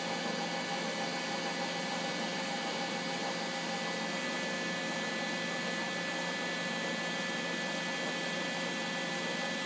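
Steady machine hum and hiss from a powered-up Hwacheon Hi-Tech 700 CNC lathe, with several steady high whining tones held throughout.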